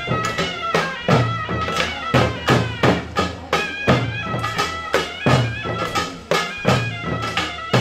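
Korean samulnori drumming: buk barrel drums and janggu hourglass drums struck in a steady, driving rhythm, with a loud reedy wind melody over the drums.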